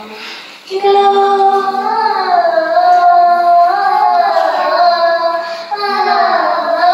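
Children singing a slow song with long, held notes that glide between pitches. The singing starts about a second in and breaks briefly near the end.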